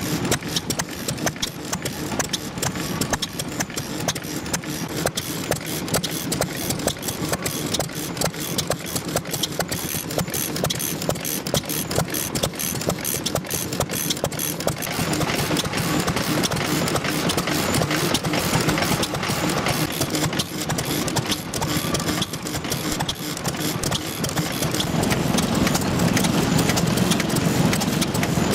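Old single-cylinder stationary engines with heavy flywheels running at a steady speed, a fast even beat of firing strokes and clicking valve gear, a little louder from about halfway.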